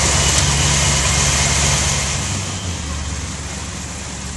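Monster buggy's engine idling steadily. About halfway through the sound changes and drops a little in level.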